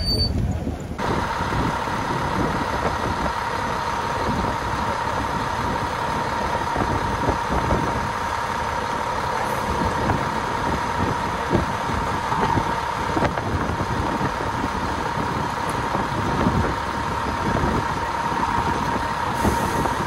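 Fire engine's diesel engine idling, a steady running sound with a constant whine over it, starting about a second in.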